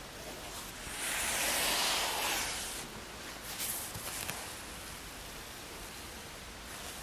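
Steady hiss with a louder rustling swell about a second in that lasts around two seconds, then a few light clicks around four seconds in: handling noise as the mats or the camera are moved.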